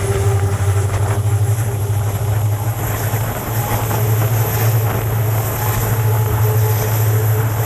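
WDP4 locomotive's 16-cylinder EMD 710 two-stroke diesel engine humming steadily under power, heard from the first coach behind it, over the train's running noise.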